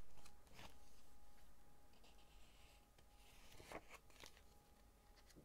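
Pages of a small paperback booklet being turned by hand: faint paper rustles, one at the start and two more a little after halfway.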